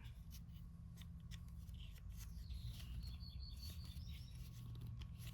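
Faint, scattered clicks and light taps of small metal drill bits being handled and sorted, over a low steady hum.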